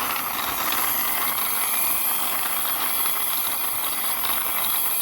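Wheels of a toy car pushed along by hand, rolling steadily over the floor with a continuous even rolling noise.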